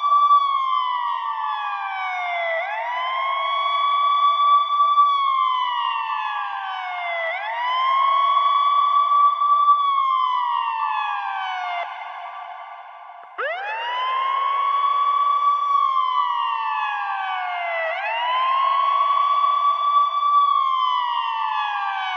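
Electronic ambulance siren wailing: each cycle sweeps quickly up to a high pitch, holds it for a moment, then slides slowly down, repeating about every four and a half seconds. Just past the middle it fades out briefly and starts again with a fast rise from low.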